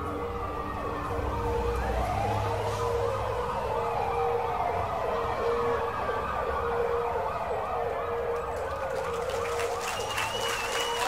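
Emergency-vehicle siren sound effect: several sirens wailing at once, overlapping and rising and falling in pitch. Applause begins near the end.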